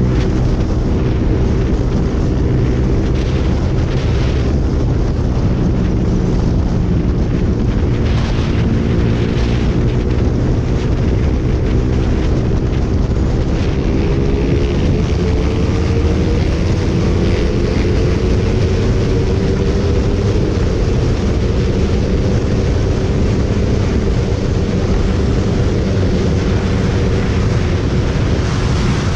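Suzuki motorcycle engine running at speed on the open road under heavy wind rush on the microphone. The engine note holds steady and climbs a little in pitch about halfway through.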